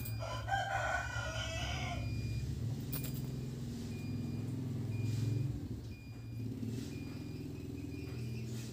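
A rooster crows once, a single long call of about two seconds near the start, over a steady low hum.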